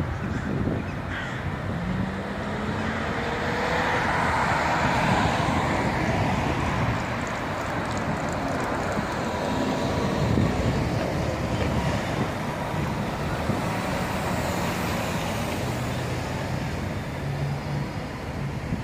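Steady city street traffic: cars and buses driving past on a busy boulevard, the noise swelling a little a few seconds in and again near the middle.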